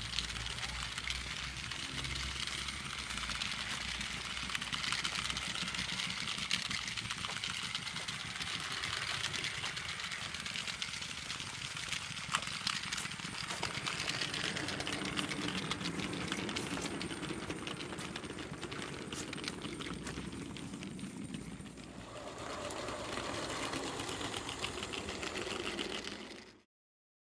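Small garden-railway train running along its track: a steady mechanical whirr with fine, rapid clicking from the wheels on the rails. The sound changes about 22 seconds in and cuts off suddenly near the end.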